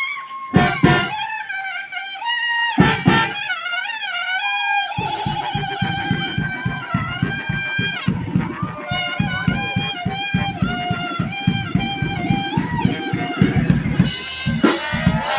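A brass street band playing. In the first few seconds the horn phrases are broken by a few loud drum hits. About five seconds in, the drums start a fast, steady beat under held horn notes.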